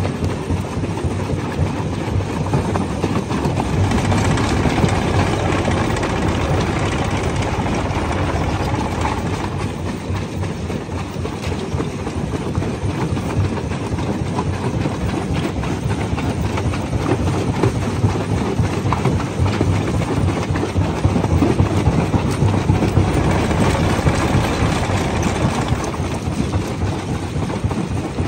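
Jaw crusher running and breaking rocks: a steady rumbling clatter of dense cracking and rattling stone. The crushing swells louder about four seconds in and again around twenty-three seconds in.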